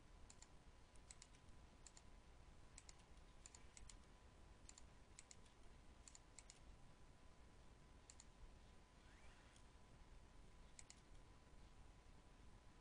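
Faint, scattered clicks of a computer mouse and keyboard, often in quick pairs, over low room tone.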